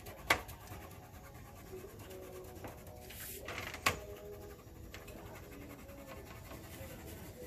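Wax crayon scratching on paper in quick, short colouring strokes, quiet and steady, with two sharp clicks, one right at the start and one near the middle.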